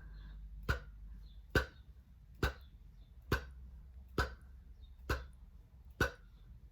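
A woman repeatedly producing an isolated voiceless P sound: lips pressed together, then released in a short puff of air. Seven sharp pops, about one a second.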